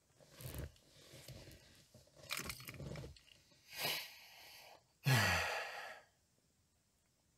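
A person breathing out and sighing several times, the last and loudest sigh about five seconds in, falling in pitch.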